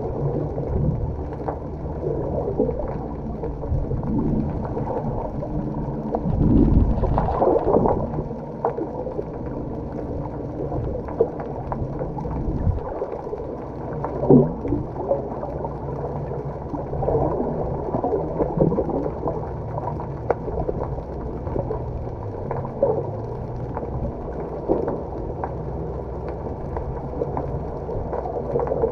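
A boat's engine running with a steady low drone, and a louder low rumble about seven seconds in.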